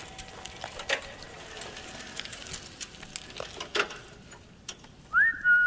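Scattered light clicks and taps in a quiet room, then about five seconds in a short high tone that glides up and holds steady for about a second.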